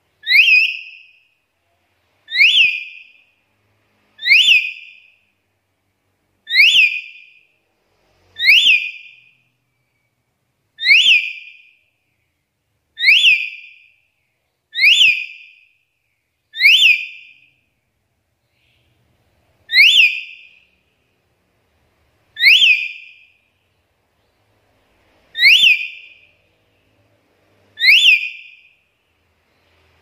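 Black-capped lory (Lorius lory) giving its loud whistled call, a short sharp upward-sweeping note, repeated about a dozen times at roughly two-second intervals with a few slightly longer pauses.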